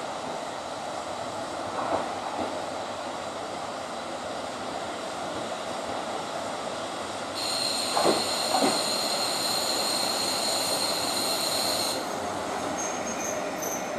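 KiHa 40 diesel railcar rolling slowly into a station platform, its engine and wheels running steadily. From about seven seconds in, a high steady squeal sounds for about four seconds as it brakes to a stop, with two knocks during the squeal.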